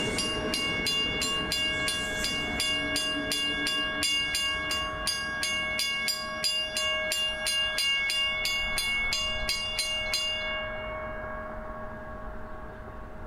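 A warning bell ringing about three strikes a second over the rumble of a passing South Shore Line electric interurban train. The bell stops about ten seconds in, and the train's hum fades away.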